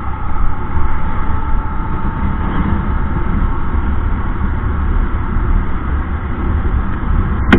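Bajaj Discover motorcycle riding along at speed: a steady rumble of its single-cylinder engine and the passing air, with a faint steady whine over it. One sharp click near the end.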